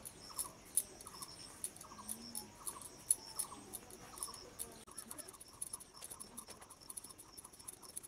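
A potato being peeled and cut against the upright blade of a boti, giving crisp scraping clicks at an uneven pace. A faint chirping call repeats every half second or so behind it.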